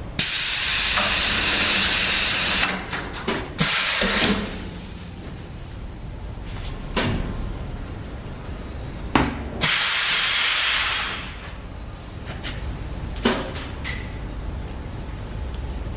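Hot press spoon-forming machine at work: a long hiss of about two seconds at the start and another of about a second and a half near ten seconds in, with sharp metal clunks and clicks between them over a steady low machine hum.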